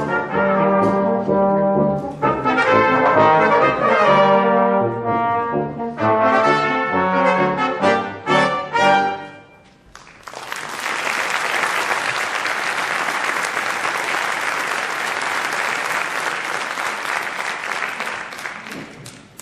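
Brass quintet playing the closing bars of a paso doble, ending on a few short accented chords. About ten seconds in, the music stops and audience applause follows.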